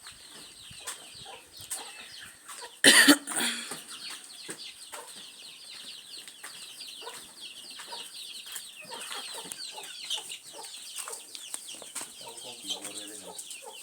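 Chickens clucking, with many short high calls throughout. A loud sudden burst comes about three seconds in.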